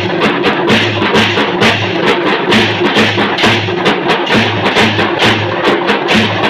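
Devotional drum-and-cymbal band: several large hand cymbals clashing together with drums beaten in a fast, steady, even beat.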